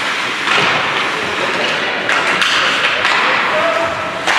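Ice hockey play in an indoor rink: skates scraping the ice and sticks and puck making sharp taps and knocks, with voices calling out over it.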